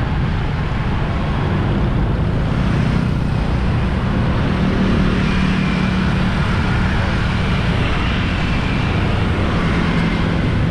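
Busy city street traffic: a steady din of vehicle engines and tyres. An engine hum grows stronger in the middle as a vehicle passes close.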